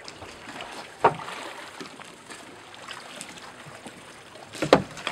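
Water splashing and lapping around a small boat, with two sharp impacts: one about a second in and a louder one near the end.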